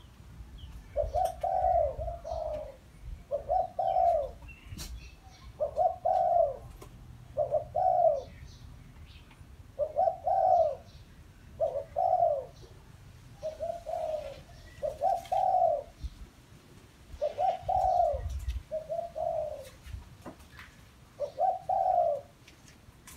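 Caged decoy spotted dove cooing repeatedly: short, low coos in a steady series a second or two apart, some coming in close pairs.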